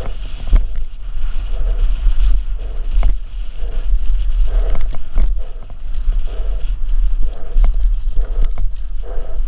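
Wind buffeting the microphone of a helmet camera on a downhill mountain bike at speed, with tyres running over the dirt trail and frequent sharp knocks and rattles as the bike hits roots and bumps.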